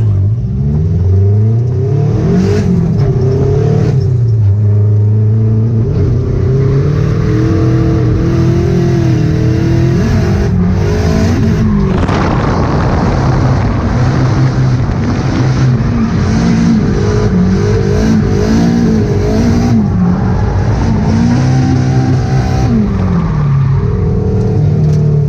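Nissan S13's turbocharged SR20DET four-cylinder heard from inside the cabin, revved hard through a drift run, its pitch climbing and dropping again and again. A rush of noise joins it about halfway through.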